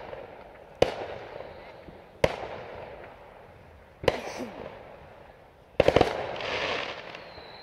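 Fireworks going off: loud sharp bangs roughly every one and a half seconds, each trailing off in a rolling echo, with a quick cluster of several bangs about six seconds in.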